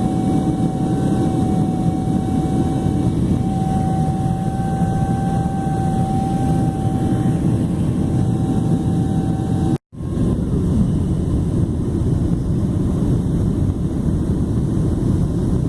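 Airliner cabin noise on descent: a steady roar of the jet engines and airflow, with a steady whine that stops at a brief, complete dropout about ten seconds in; the roar then carries on.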